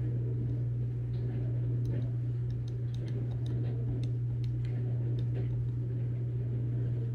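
A dishwasher running in the background: a steady low hum with a wash of noise over it. Faint, irregular clicks of computer keys come through over it.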